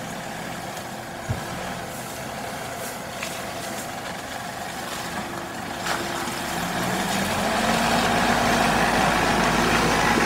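A 4x4 SUV's engine running under load as it crawls through a muddy rut, growing louder about two-thirds of the way through as the vehicle comes up close.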